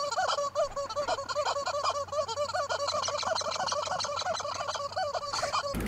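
Rubber chicken squeaky toy squawking over and over in quick succession, several honking squeaks a second, as a horse chomps on it. The squawking cuts off suddenly near the end.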